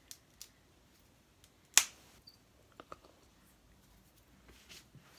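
Light clicks and taps of handling a stick and a plastic deli cup, with one much louder sharp click a little under two seconds in.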